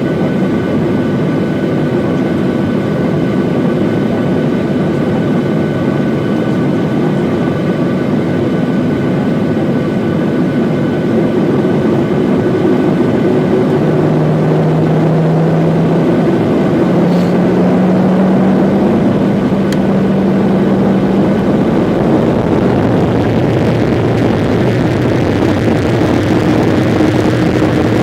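Airliner engines running steadily, with a low hum that steps up in pitch partway through. The sound grows somewhat louder and hissier in the last third as the power builds.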